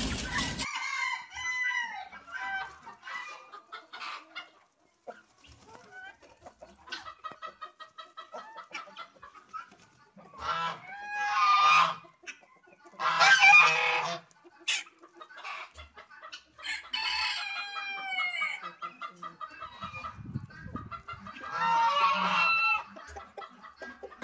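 A flock of chickens clucking and calling in short, pitched calls. Louder, longer calls break out about four times.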